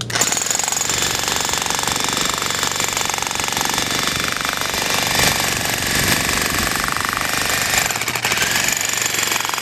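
Electric demolition breakers chiselling into a concrete slab: a continuous, rapid, even hammering with no pause.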